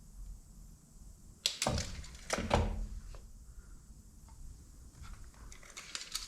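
A few sharp knocks and clunks about a second and a half in, then lighter clicks and taps near the end: hand work on a motorcycle front wheel as it is shifted along its axle to center it.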